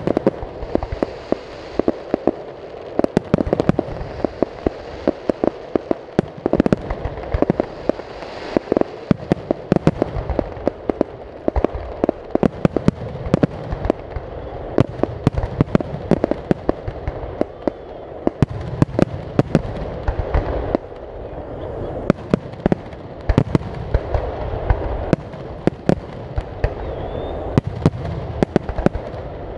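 Aerial firework shells bursting in a dense, continuous volley: many sharp bangs, several a second, one after another over a constant low rumble of echoing reports.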